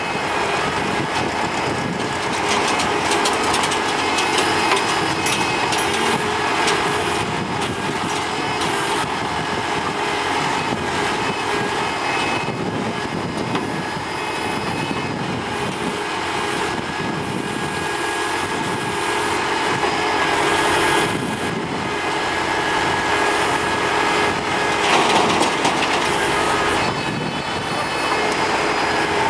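TAFE tractor's diesel engine running steadily under load, driving the hydraulics of its tractor-mounted backhoe as it digs, with small swells in level.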